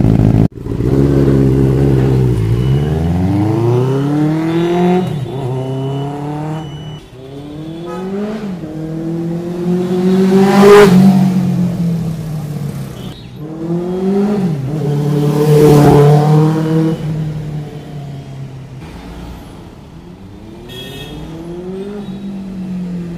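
Benelli TNT 600i inline-four superbike with a Scorpion exhaust being ridden hard: the engine revs up repeatedly with rising pitch and drops at each gear change. It is loudest as it passes about 11 and 16 seconds in, fades, then comes back near the end.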